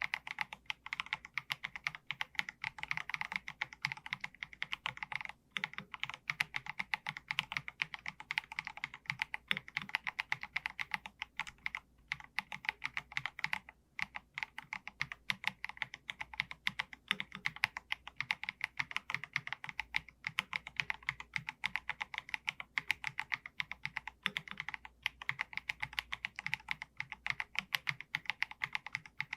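Fast, continuous typing on an Akko MG108B full-size mechanical keyboard with Akko V3 Piano Pro linear switches, several keystrokes a second with a few short pauses.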